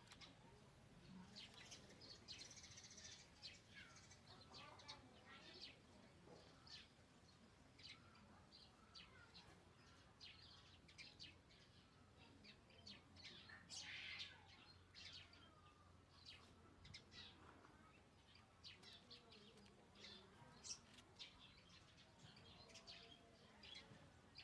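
Faint bird chirps: many short, high calls at irregular intervals throughout.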